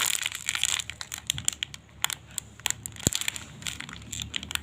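Irregular crinkling and crackling of thin plastic being handled, probably the wrapping of a squishy toy being turned in the hands, busiest in the first second, with one sharp tap about three seconds in.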